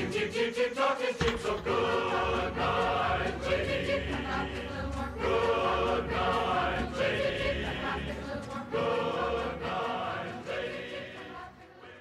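Background music with choir-like singing in held, changing chords; it fades out near the end.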